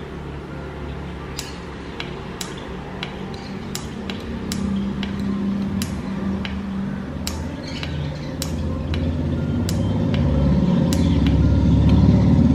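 The power button of a portable rechargeable blender clicked again and again, more than a dozen times, over a low hum that grows louder near the end. The blender won't start properly: its blade gets stuck under the tomato pieces.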